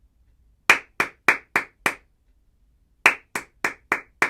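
Two rounds of five quick hand claps, about four a second, a pause between the rounds. Each round claps out the five letters of the word 'sugar' in place of singing it.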